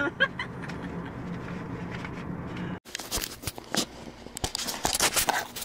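A steady low hum inside a car. About three seconds in it cuts off sharply and gives way to irregular clicks and rustles of a handheld camera being carried while someone walks across a tiled floor.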